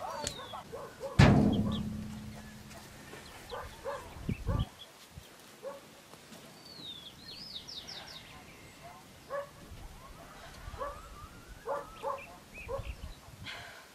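A corrugated sheet-metal door bangs once about a second in, ringing briefly, with a second duller knock a few seconds later. After that a dog gives short yips and whimpers, with a few bird chirps.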